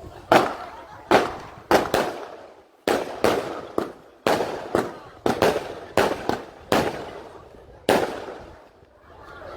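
Diwali fireworks going off in a string of sharp bangs, irregularly spaced at about one to two a second, each trailing off in a short echo. The bangs stop about eight seconds in.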